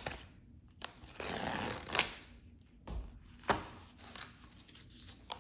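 Cardboard Kindle box being torn open by its pull tab, with a papery rip about a second in, then sharp clicks and taps as the box is handled on the tabletop.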